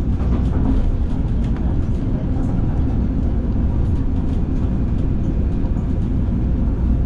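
Busan–Gimhae light rail train running along the line, heard from inside the car: a steady low rumble of wheels and running gear with faint small clicks and rattles over it.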